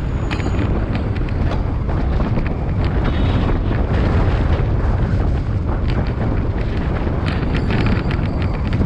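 Wind rumbling steadily on the microphone of a camera riding on a moving bicycle, with short rattling clicks, most of them near the end.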